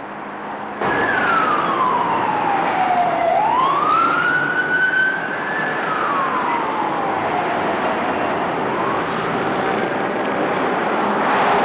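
A wailing siren whose pitch slides slowly down, back up and down again over several seconds, over a steady rushing noise; it cuts in abruptly about a second in.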